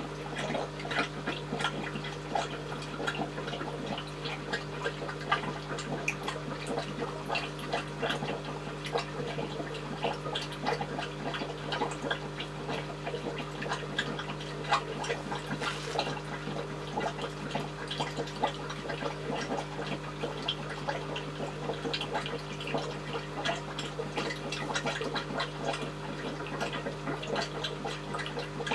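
Aquarium substrate being siphoned with a homemade PET-bottle gravel vacuum: water trickling and dripping with many small clicks, over a steady low hum.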